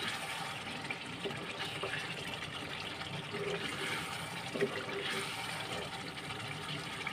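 A spatula stirring thick chicken karahi masala in a nonstick pan, a steady wet hiss of the simmering sauce being worked. A few light knocks of the spatula against the pan come through, the clearest about four and a half seconds in.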